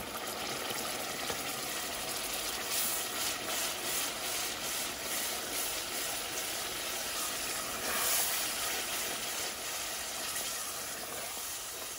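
Blended tomato and pepper mix sizzling in hot oil and fried tomato purée as it is poured into the pot and stirred in with a wooden spoon, the sizzle swelling briefly about eight seconds in.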